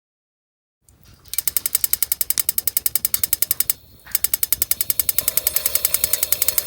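Rapid, even mechanical clicking, about ten clicks a second, like a ratchet or winding mechanism, with a short break partway through.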